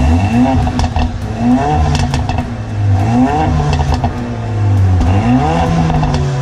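Car engine blipped from idle about four times, the revs rising and falling each time, with the exhaust popping and crackling as the revs drop back.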